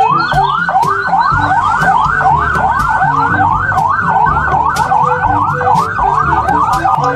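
Police car siren in fast yelp mode, sweeping rapidly up and down about three times a second without pause.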